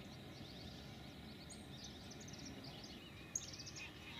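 Faint bird calls: clusters of short, high chirps, about a second in and again just after three seconds, over a quiet rural background hush.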